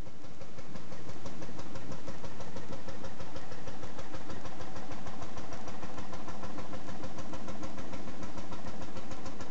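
Vintage tractor engine running with a rapid, even beat as the tractor drives past, getting louder about a second in.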